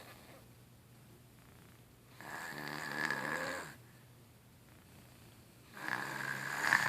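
A baby snoring: two snores, one starting about two seconds in and one near the end, each lasting about a second and a half.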